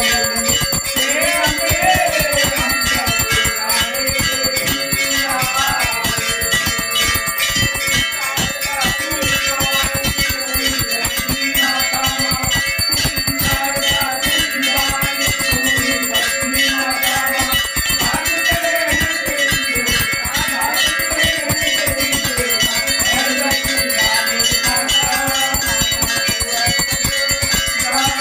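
Temple bells rung rapidly and without pause during a Hindu aarti, their ringing steady and bright throughout, with devotees singing the aarti in a repeating melody underneath.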